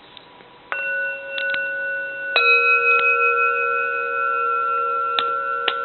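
Two bronze Buddhist temple bells struck one after the other, the first about a second in and a slightly lower one about a second and a half later. Both ring on together with long, steady, pure tones, with a few light taps over the ringing.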